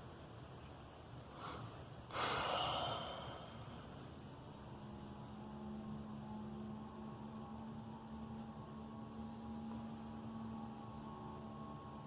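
A short breathy burst about two seconds in, then a steady droning hum with several higher tones above it sets in about four seconds in.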